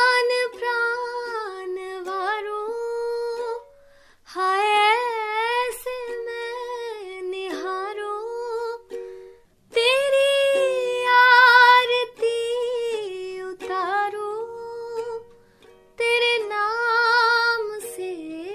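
A woman's singing voice, solo, in long phrases with a wavering, bending pitch over ukulele accompaniment. The phrases break off in short pauses about every five seconds.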